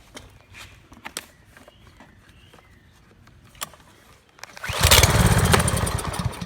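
Pressure washer's Kohler 7.75 small gas engine, on choke, is pull-started after a few seconds of faint handling clicks. About four and a half seconds in it fires and runs with a fast beat for under two seconds, then dies. It won't keep running; the owner thinks this is probably a dirty carburetor.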